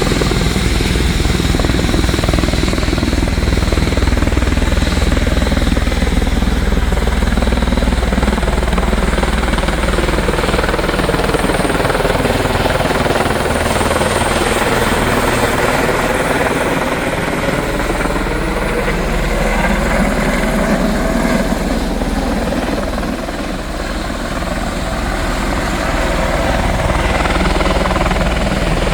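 Helicopter close by, with a steady rotor beat and turbine whine; its tone sweeps down and back up through the middle as it moves past.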